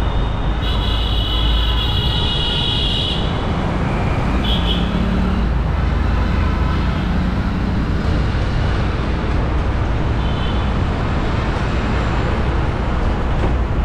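Busy city road traffic: a steady rumble of engines, with a high-pitched tone held for about two seconds near the start and two brief ones later.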